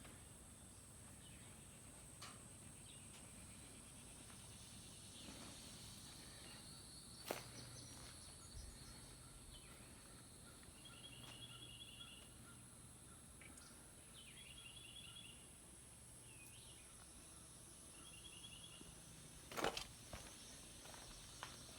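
Near silence: faint outdoor ambience with a steady high drone, three short chirping trills and a couple of isolated clicks; no machinery is running.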